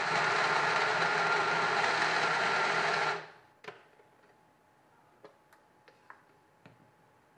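Personal blender's motor running steadily for about three seconds, blending the cooked tomato, onion and cashew sauce, then cutting off suddenly. A few faint clicks follow as the jar is handled and lifted off the motor base.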